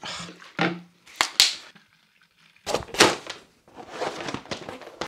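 Two sharp plastic clicks from a spray bottle about a second in. Then a black workbench mat is unrolled and spread out, with a loud flap and slap near three seconds in and rustling and scraping after it.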